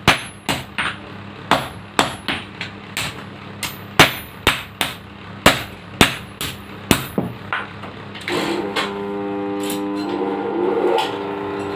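Hammer blows on steel at the anvil while forging a kris blade: sharp, irregular strikes about two a second, each with a brief high metallic ring. They stop about seven and a half seconds in, and a steady hum takes over.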